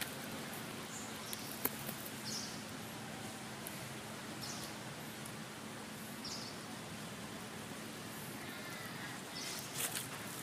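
Steady outdoor background noise with a few short, high chirps scattered through it and a faint steady low hum.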